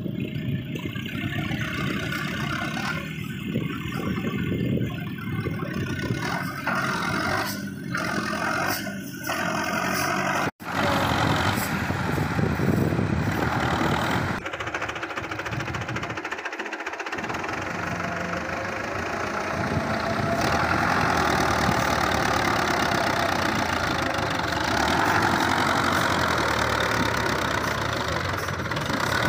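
Belarus tractor's diesel engine running under heavy load as it pulls a loaded trailer through soft, deep sand. The sound cuts out for an instant about ten seconds in.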